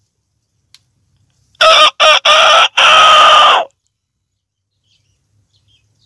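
A man imitating a domestic rooster's crow with his voice: one cock-a-doodle-doo of four notes, the last one held long, starting about a second and a half in.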